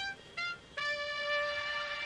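Instrumental background music: two short notes, then a long held note from about three-quarters of a second in.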